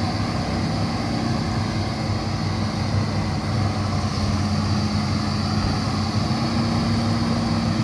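Hitachi Zaxis 210F excavator's diesel engine running steadily at a constant speed.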